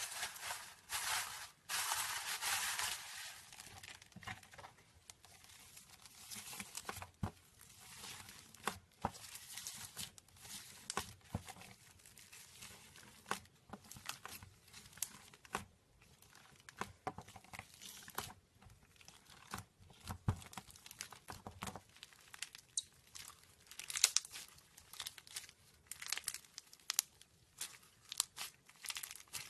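Slime being squeezed and stretched by hand, with a dense crackle for the first few seconds and then many small irregular pops and clicks as it is worked.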